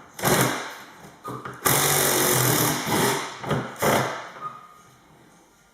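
Power driver with a socket running out the door handle's mounting bolts: a short burst, a longer run of about a second and a half, then two short bursts.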